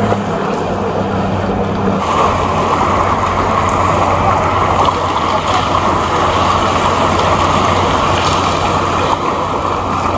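Boat engine running with a steady low hum, under a loud, dense rush of water and wind that thickens about two seconds in.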